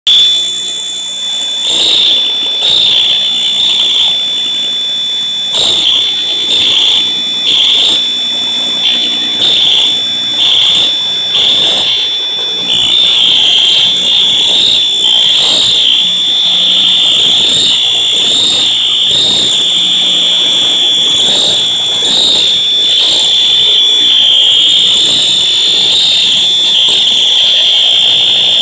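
Fire alarm horn-strobe sounding a loud, high-pitched electronic horn tone. Its loudness wavers for about the first dozen seconds, then holds steady.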